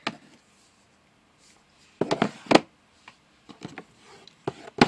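Makeup palettes being handled and set down in a drawer: a short clatter of knocks and scraping about two seconds in, then scattered light clicks and taps as the palettes are shuffled into place.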